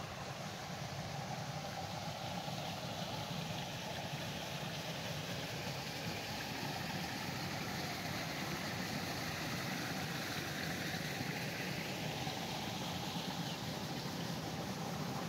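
Steady rushing outdoor background noise with a low hum underneath, without distinct events.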